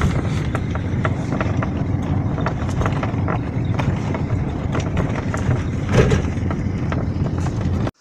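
Car cabin noise while driving: a steady low road and engine rumble with frequent small clicks and rattles, and a louder knock about six seconds in. The sound cuts off abruptly near the end.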